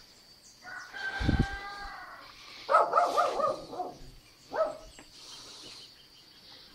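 Animal calls: one longer drawn-out call about a second in, then a quick run of short calls near the middle and a single short call shortly after.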